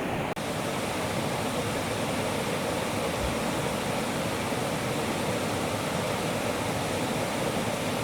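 Mountain valley stream rushing steadily over rocks, with a momentary dropout near the start.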